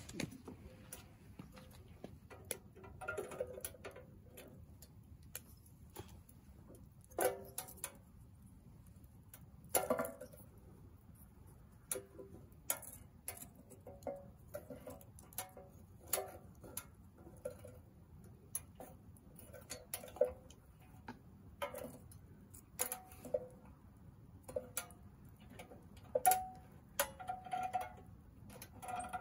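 Firewood burning in a small steel wood stove, the Soomloom MECA, crackling and popping at irregular intervals. A few sharper snaps stand out among fainter ticks, over a low steady hum.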